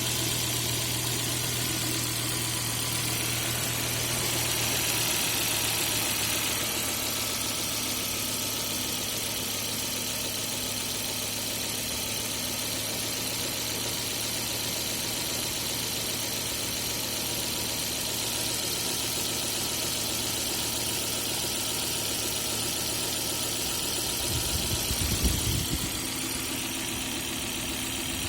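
Volvo B5244S2 2.4-litre five-cylinder engine idling steadily, with a short low rumble about 25 seconds in.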